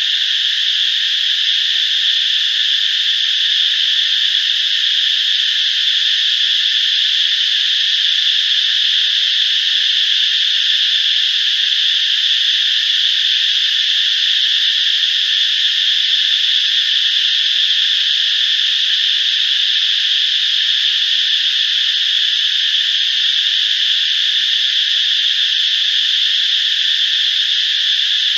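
Steady, unbroken high insect drone, a dense chorus buzzing without pause.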